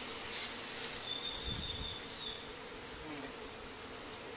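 Honeybees buzzing in a steady hum around an opened hive as its comb frames are lifted out.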